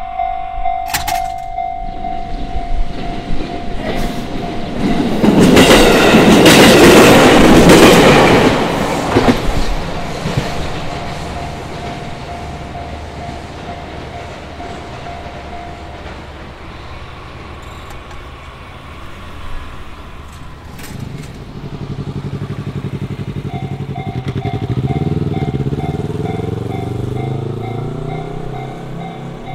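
Japanese level-crossing alarm bell ringing while an electric train of the Fukushima Kotsu line passes, loudest for a few seconds with a dense rush of wheel and running noise. The bell stops soon after the train has gone. Later a second crossing's alarm starts ringing in quick, even pulses over a low hum that rises and falls in pitch.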